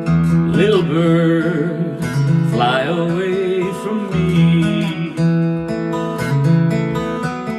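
A song: acoustic guitar strumming chords, with a voice singing a wavering melody over it in short phrases.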